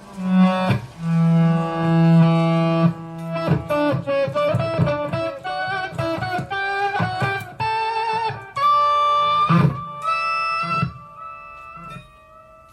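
Electric guitar played through a Zoom G5n multi-effects unit on a patch with heavy delay. Notes swell in and hang with echoes. A run of quick notes comes in the middle, and it ends on a long high note that slowly fades.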